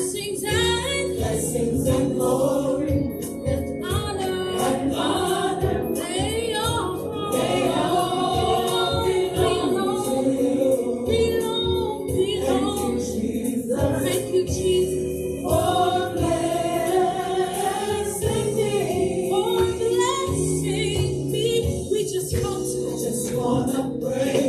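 Gospel choir singing with instrumental accompaniment and a pulsing bass line.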